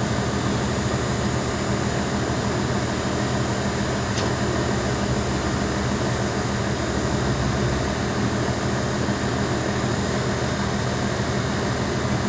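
Heavy construction machine's engine, likely an excavator's diesel, running steadily at an even speed.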